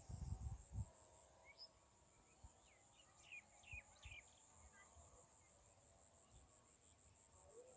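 Faint insects trilling in a steady, high, pulsing chirp at about five pulses a second, with a bird giving a string of short chirps between about one and a half and four and a half seconds in. A low rumble dies away within the first second.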